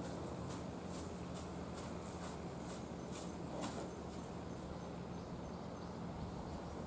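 Malayan tapir's footsteps as it trots over an earth floor: irregular light taps and scuffs, about one to two a second, over a steady low hum.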